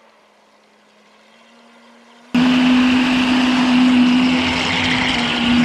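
Electric RC jet boat's motor and jet pump running with a steady whine, faint at first. About two seconds in the sound jumps abruptly to loud: the same whine much stronger, over a loud rush of water.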